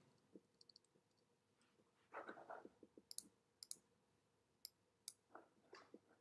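Faint, sharp clicks from operating a computer, a handful spaced roughly half a second to a second apart in the second half, over near-silent room tone with a faint hum. A few soft brief noises about two seconds in.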